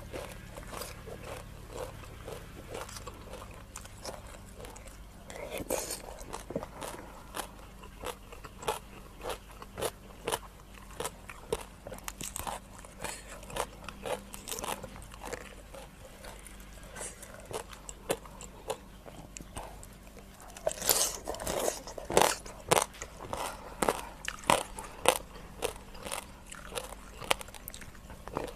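Close-miked crunching and chewing as raw rice-field crab and shredded green papaya salad are eaten, a long run of sharp crunches with short pauses. The crunches come thickest and loudest a little past two-thirds of the way in.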